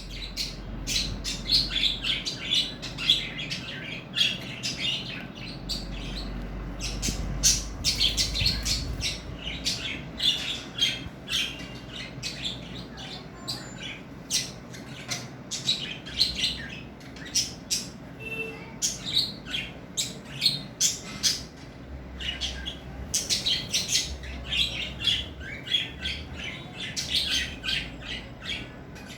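Budgerigars chirping and chattering in a continuous run of short, high calls mixed with squawks. The chatter thins out for a few seconds after the middle, then picks up again.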